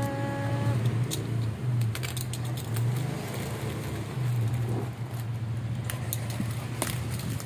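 A steady low hum, like a motor running nearby, with scattered sharp clicks and light rattles of handling. A short rising pitched sound comes right at the start.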